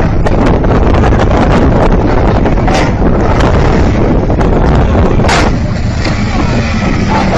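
Loud wind rumble buffeting the microphone over the noise of a car coming down a ferry's steel loading ramp, with a couple of sharp knocks, one about three seconds in and one about five seconds in.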